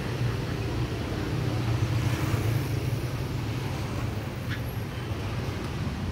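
Steady low hum of a vehicle engine running nearby, over street traffic noise.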